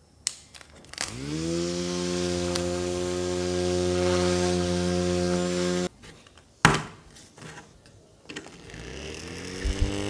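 A small handheld battery fan clicks on and its motor rises quickly to speed, then runs with a steady whine until it cuts off suddenly about six seconds in. After another click, a second handheld fan spins up more slowly near the end, its whine rising in pitch.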